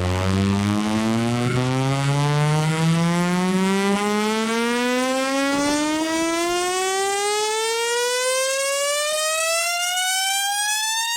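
A siren-like tone with many overtones rising slowly and steadily in pitch, from a low hum to a high wail, used as a riser in a bass-boosted electronic remix.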